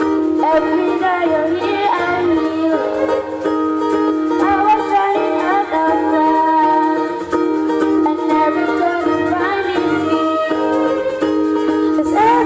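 A girls' school choir singing, amplified through microphones and stage speakers, over instrumental accompaniment that holds steady chords.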